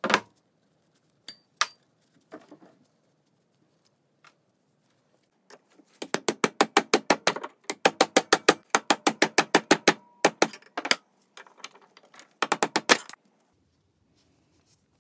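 Metal-on-metal hammer taps on a steel hook and rod clamped in a bench vice: a few scattered clinks, then a fast run of ringing taps, about seven a second, lasting some four seconds, followed by three shorter runs.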